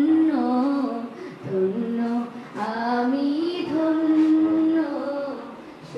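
A woman singing an Islamic ghazal solo into a handheld microphone: long held notes in phrases, with short breaks for breath between them.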